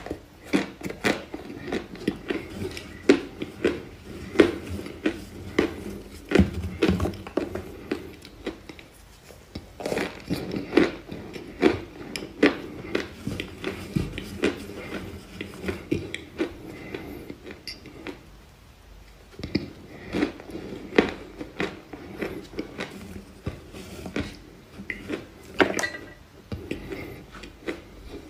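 Irregular crunching and crackling as dry, crumbly white clay chunks are bitten and chewed, mixed with pieces being broken and crumbled by hand in a bowl. There is a short lull about two-thirds of the way through.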